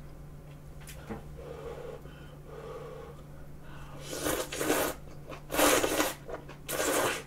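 A person slurping thick udon noodles from kimchi udon, three loud slurps in the second half.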